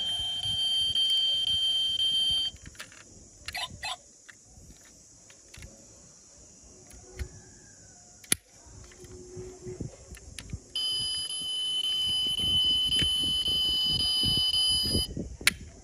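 A steady high electronic tone, like an alarm or buzzer, sounds for the first two and a half seconds, stops, and comes back for about four seconds near the end. In the quieter stretch between, small clicks and taps come from the die-cast toy car's trunk lid and doors being opened by hand.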